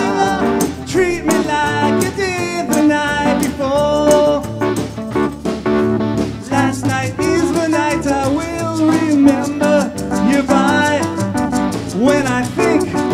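A live rock band playing a song with a sung lead vocal, electric guitar, bass, a drum kit with cymbals, and a shaken tambourine.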